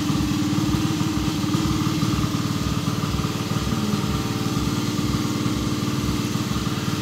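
A small engine running steadily, with a regular low pulsing.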